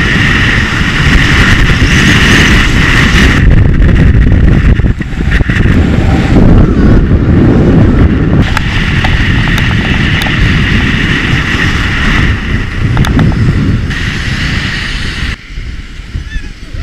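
Wind buffeting an action camera's microphone and skis hissing over packed snow during a fast downhill run. The noise eases about fifteen seconds in as the skier slows.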